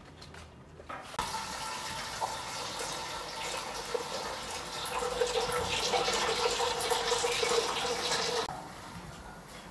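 Water pouring from a stainless steel kettle into a large metal cooking pot, a steady filling stream that starts about a second in and stops shortly before the end.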